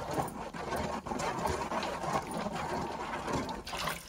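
A hand swishing and rubbing in shallow water at the bottom of a stainless steel pot, with small irregular splashes and clicks against the metal. It is the water test of thickened jaggery syrup, rolled under water to see whether it forms a ball.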